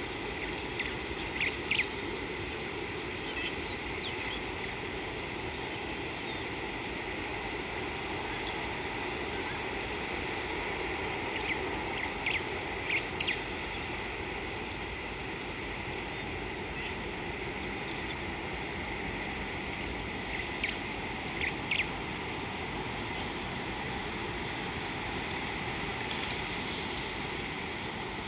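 Insect chirping in a regular rhythm, about once a second, over a steady high insect drone. A few short high calls break in near the start, around the middle and about three-quarters of the way through, over an even outdoor background hiss.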